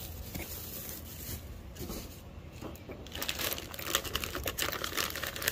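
Plastic packaging being handled: bubble wrap and a clear plastic bag crinkling, a run of small crackles and clicks that gets busier and louder in the last couple of seconds.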